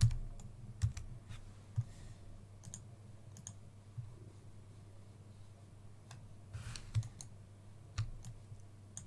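Scattered clicks of a computer keyboard and mouse, a few sharp taps spread irregularly over several seconds, over a steady low hum.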